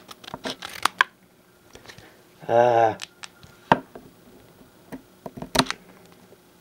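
Foil trading-card booster pack crinkling as it is handled and cut at with scissors, in scattered sharp clicks and crackles. A short voiced sound comes about two and a half seconds in.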